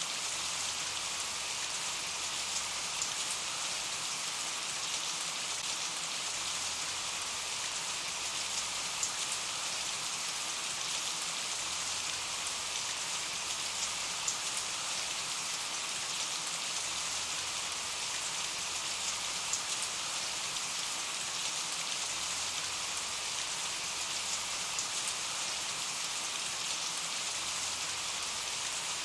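Steady rain falling on a surface, a constant even hiss with scattered small drop ticks.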